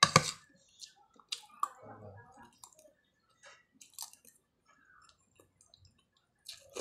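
Close-up eating sounds: a man chewing food taken from a spoon, with soft wet mouth noises and scattered light clicks of metal cutlery. A single sharp knock, the loudest sound, comes just as it begins.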